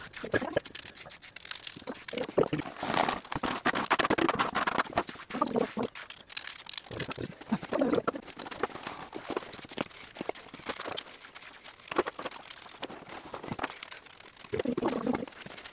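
A small trowel scraping and slapping wet concrete, working it into a hole to make a concrete bed, in irregular scrapes, taps and wet slaps.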